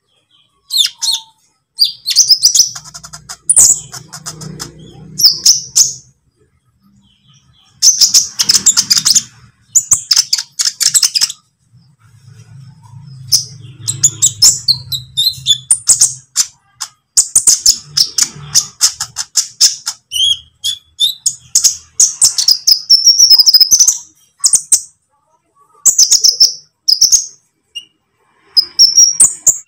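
Young green-plumaged olive-backed sunbird (konin) calling: rapid high-pitched chips and twittering trills in bursts of one to four seconds, separated by short silences.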